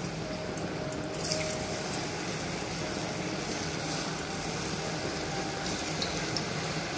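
Hot oil sizzling and bubbling in a kadhai as batter-coated potato sticks for French fries deep-fry, a steady hiss that flares up briefly about a second in and again near the end as more pieces go in.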